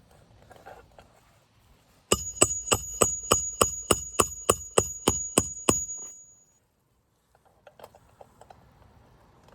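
Hammer driving a roofing nail to tack down an asphalt shingle tab. There are about thirteen quick, even strikes over roughly four seconds, each with a metallic ring, followed by a few faint clicks.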